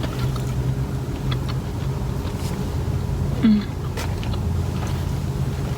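Car engine idling steadily, heard inside the cabin, with faint clicks of chewing and one short vocal 'mm' with falling pitch about halfway through.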